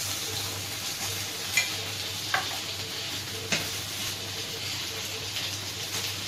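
Thin potato slices frying in oil in a pan: a steady sizzle, with three sharp clicks about a second apart.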